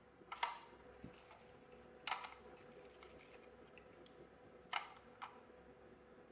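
About four light, sharp clicks and taps spread over a few seconds, like the charge controller and its parts being handled, over a faint steady hum.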